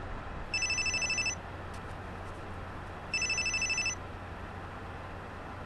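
Mobile phone ringing with a fast electronic trill: two rings of just under a second each, about two and a half seconds apart, with a third beginning at the very end, over a steady low hum.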